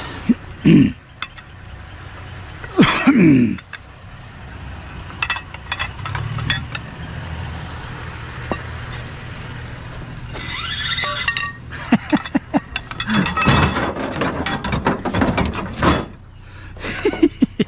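Scrap being taken apart by hand: irregular clicks, clinks and ratcheting from tools and from metal and plastic parts being worked loose, with a denser run of clicking late on.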